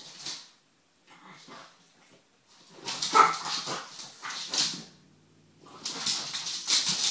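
Small dogs barking and whining in bursts, with short pauses about a second in and around five seconds in.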